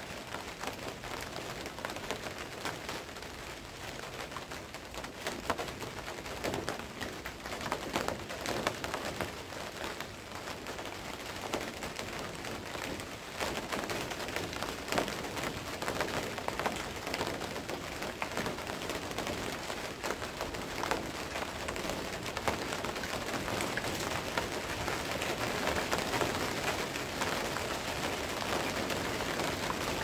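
Steady rain falling on surfaces, with many separate drops ticking close by. It grows a little heavier about halfway through.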